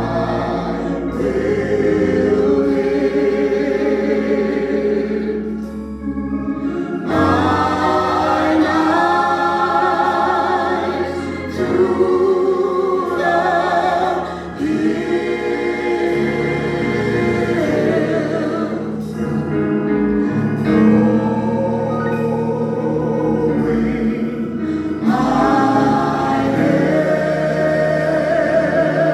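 A choir singing gospel music with instrumental accompaniment, in phrases of a few seconds.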